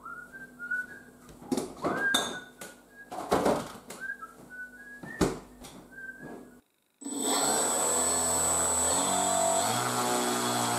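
Two small electric motors of a twin-motor RC plane spinning their propellers steadily a little above idle, heard from about seven seconds in and the loudest sound here. Before that, a few scattered knocks and a faint thin high tone.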